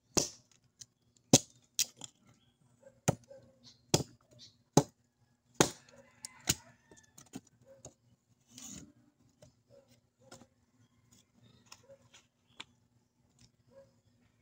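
A blade chopping wood into kindling: sharp, irregular strikes, about eight loud ones over the first seven seconds, then lighter taps.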